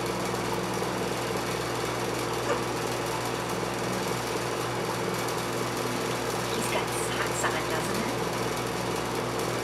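A small motor running with a steady hum, with a few faint ticks about two and a half and seven seconds in.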